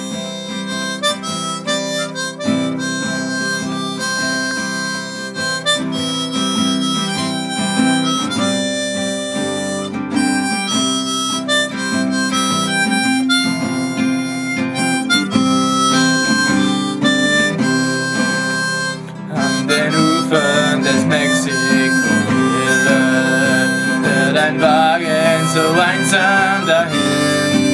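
Harmonica playing a melody over acoustic guitar accompaniment, an instrumental intro to a country-style song. The harmonica gets louder and busier after a short dip about two-thirds of the way through.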